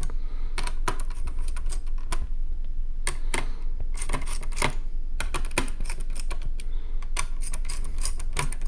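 Screwdriver tightening the small screws of a laptop CPU cooler a little at a time: a run of irregular sharp clicks and small metal ticks.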